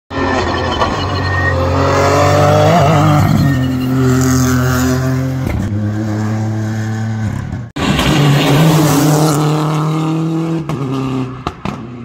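Rally car engines at full throttle: the engine note climbs and drops back in steps at gear changes. It cuts off abruptly about eight seconds in, and another run of hard acceleration follows at once.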